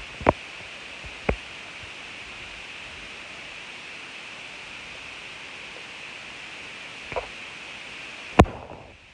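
Steady hiss with a few short knocks or clicks, the loudest one near the end, after which the hiss drops away.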